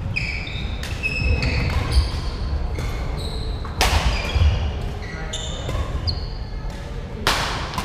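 Badminton rally: a series of sharp racket-on-shuttlecock hits, the loudest about halfway through and near the end, with short high squeaks of court shoes on the sprung wooden floor in between. The sound echoes around the large hall.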